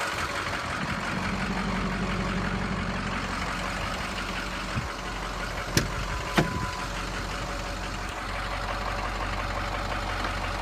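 An engine idling steadily in the background, with two sharp clicks about six seconds in as a truck door is unlatched and opened.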